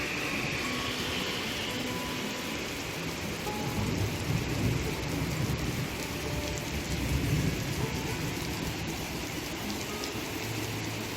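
Steady rain falling, an even hiss throughout, with a low rumble that swells in the middle and fades out.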